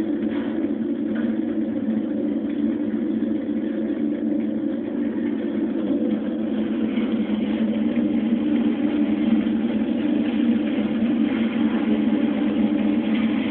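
A steady low drone, growing slightly louder and brighter about halfway through.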